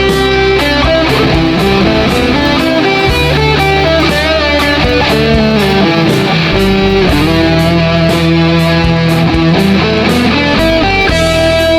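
Difergio MSV electric guitar playing melodic lead lines over a backing track with drums and bass.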